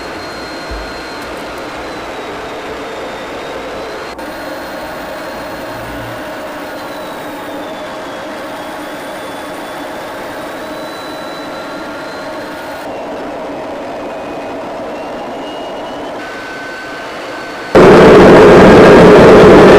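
Steady jet aircraft noise heard from inside the cockpit, with faint whining tones drifting slowly in pitch. About eighteen seconds in it cuts suddenly to much louder jet engine noise.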